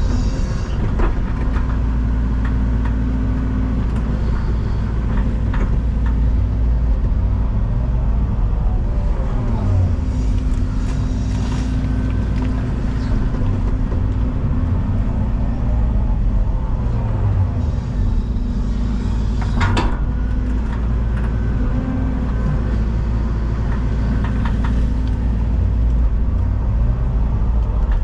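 Excavator's diesel engine running steadily under working load, with the hydraulics whining as they change pitch. The bucket knocks and scrapes on loose stone now and then, one sharp knock coming about two-thirds of the way through.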